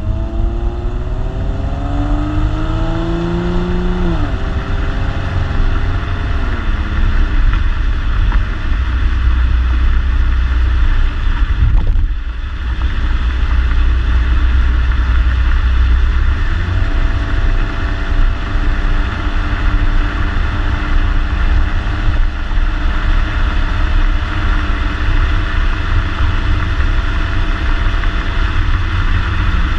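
2014 Ford Mustang's 3.7-litre V6 heard through its stock exhaust while driving. The engine note climbs over the first few seconds and drops off about four seconds in, then settles into a steady drone at a constant speed.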